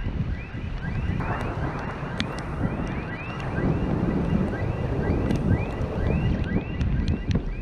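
Thunderstorm: wind buffeting the microphone over a low, uneven rumble of distant thunder. A short chirp repeats a few times a second throughout.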